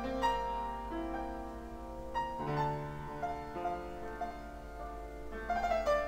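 Piano music: held notes and chords ringing over one another.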